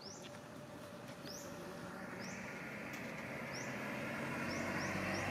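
Short, high chirps, each rising in pitch, repeating about once a second and coming closer together near the end, over a broad rush of noise that swells from about two seconds in.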